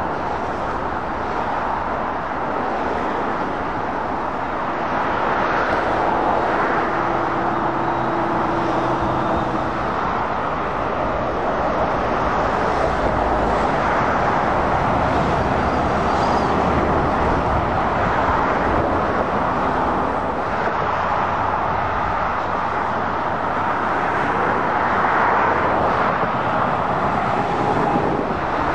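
Steady dual-carriageway traffic: heavy lorries and cars passing, a continuous rush of tyre noise that swells as each vehicle goes by. A lorry's diesel engine note stands out for a few seconds about a quarter of the way in.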